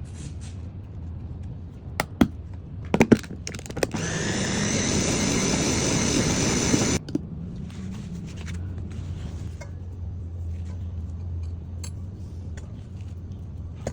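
A few sharp knocks, then a small electric kitchen grinder runs with a steady whine for about three seconds and cuts off suddenly.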